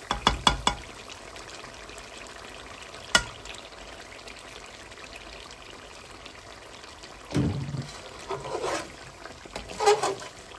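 Kitchen cooking sounds: a few sharp clinks of a utensil against cookware at the start and once about three seconds in, over a steady faint liquid or sizzling background, with louder scraping and stirring noises in the last few seconds.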